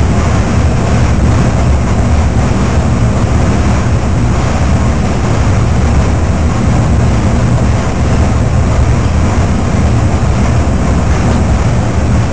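Human centrifuge running at full speed, a loud, steady low rumble with a rushing noise over it, heard from inside the gondola while it holds the rider at about 6 G.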